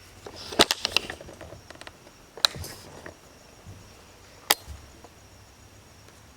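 A quick cluster of sharp clicks and knocks about half a second in, then two single sharp clicks, one about two and a half seconds in and one about four and a half seconds in.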